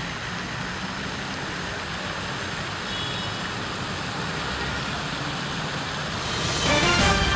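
Steady city traffic noise, a constant wash of passing vehicles with a low rumble. About six seconds in it swells and music starts with sharp percussive hits.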